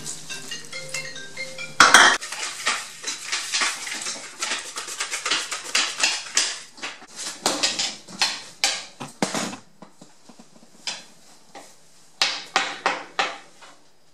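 A spoon clattering in a plastic mixing bowl, stirring pancake batter in quick repeated strokes for several seconds after a loud clank about two seconds in. Later come a few separate taps as batter is scooped out. Soft music plays for the first two seconds.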